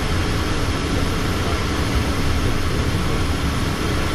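Steady cabin noise of a Learjet in flight, heard from inside: a deep, even rumble from its jet engines with the hiss of air over the fuselage, holding level without change.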